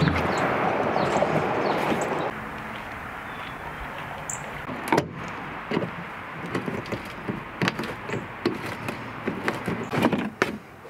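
Handling noise from parts being lifted and pulled out of a fibreglass hovercraft hull: a steady rushing noise for about two seconds that cuts off suddenly, then scattered knocks and scrapes, with a louder clatter near the end.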